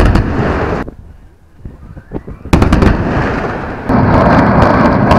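Loud explosive blasts over the bay: a sharp bang at the very start that rumbles away within a second, another about two and a half seconds in, and from about four seconds a continuous heavy rumble.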